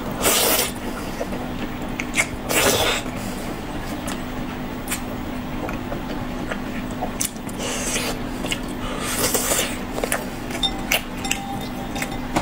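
Close-up eating sounds: mouth noises of chewing food off skewers, with four short rushing bursts and scattered small clicks and clinks, over a steady low hum.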